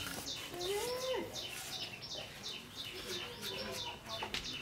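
Birds chirping: a steady run of short, high chirps, about three a second, with a lower call rising and falling about a second in.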